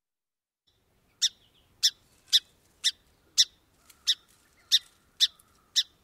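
Song sparrow chip calls, its alarm call, given when agitated: nine short, sharp chips at about two a second, starting about a second in.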